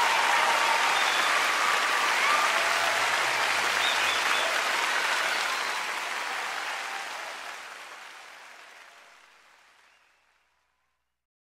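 Audience applauding, the clapping fading out steadily to silence about three-quarters of the way through.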